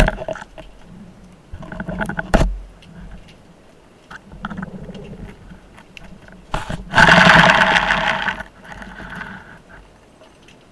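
Underwater, a rubber-band speargun fires at a barracuda with a loud sharp crack right at the start. Scattered knocks and clicks follow, and a loud scraping rush of noise lasting about a second and a half comes around seven seconds in.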